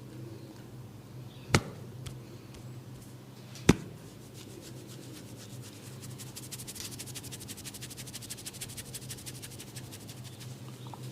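Two sharp cracks about two seconds apart, then a fast, even run of light hand taps, about ten a second, for several seconds, as in a barber's chopping head and shoulder massage.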